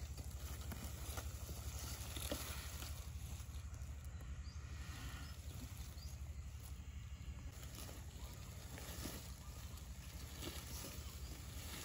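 Two Komodo dragons tearing at a goat carcass, with scattered faint clicks and rustles over stony ground, above a steady low rumble.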